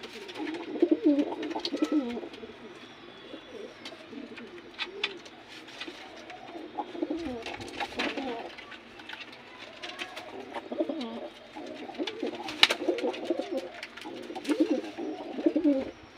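Domestic pigeons cooing, low warbling coos repeating on and off, with scattered sharp clicks and taps.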